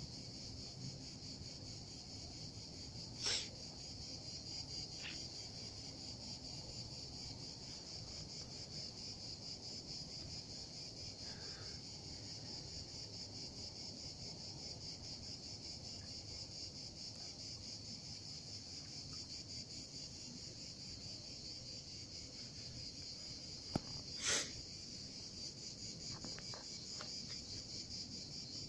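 A steady, high-pitched chorus of insects trilling with a fine pulse, with two brief louder sounds, about three seconds in and again near the end.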